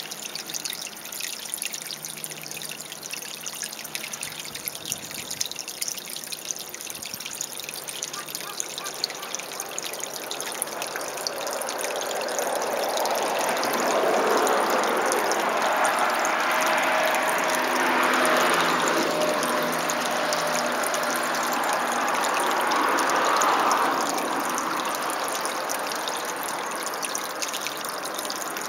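Water of a small stream trickling and running steadily. It grows louder about halfway through and drops back a few seconds before the end.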